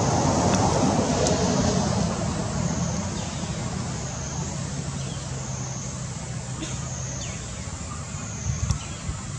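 A motor vehicle's engine hum and road noise, loudest at first and then easing off as it passes. Over it runs a high hiss that wavers about once a second, and a couple of sharp knocks come near the end.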